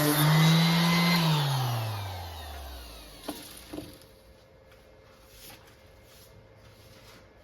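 Workshop power tool's electric motor running, then switched off and spinning down, its hum falling steadily in pitch for about two seconds until it stops. Two light knocks follow shortly after.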